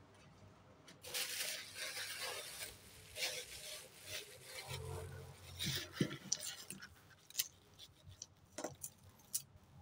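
Thin clear plastic bag of costume jewellery crinkling and rustling as it is handled, with small clicks of the pieces inside. Near the end come a few short sharp snips of scissors cutting into the plastic.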